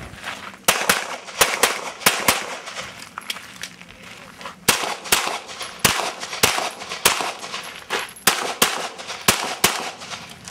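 Semi-automatic pistol fired in quick pairs of shots, the two-shots-per-target pace of a practical shooting stage. The shots stop for about two seconds a couple of seconds in, then come again in fast pairs through the rest.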